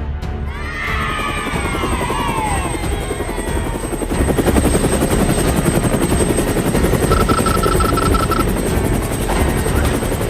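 Cartoon sound effects: falling whistling glides, then a helicopter's rotor chopping rapidly from about four seconds in, with a quick run of about eight short beeps partway through.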